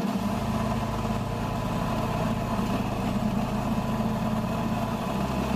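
Drill press motor running as a wood drill bit bores into a pine board, a steady hum with cutting noise over it; the hum changes pitch about five seconds in.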